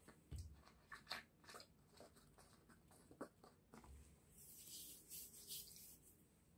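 Quiet handling of a large plastic beer bottle: a few small clicks as the cap is screwed on, and soft thumps as the bottle is set on the floor, followed by a faint rustle near the end.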